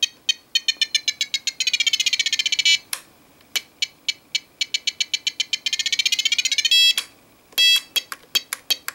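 Trim switches on a FlySky FS-T6 radio transmitter beeping. There is a string of short electronic beeps, some spaced and some in fast runs while a switch is held, and the tone drifts in pitch as the trim moves, really low at one end and really high at the other. Two longer steady beeps come near the end.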